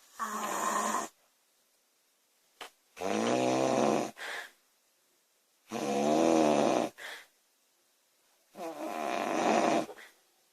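A girl snoring loudly: four long snores, about one every three seconds. The second and third snores are each followed by a short, softer breath.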